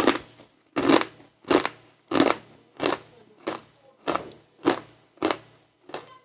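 Someone chewing a crunchy snack with steady bites, about ten crisp crunches at a little under two a second.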